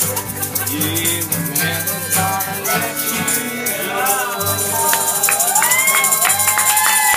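Acoustic guitar strummed with a shaker rattling along in rhythm, the tail end of a live singalong. About five seconds in, voices come in with high, gliding sustained notes.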